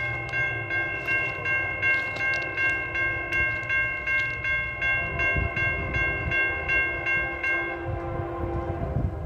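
Railroad grade-crossing bell ringing rapidly, about three strikes a second, then stopping about eight seconds in. A train's low rumble runs underneath.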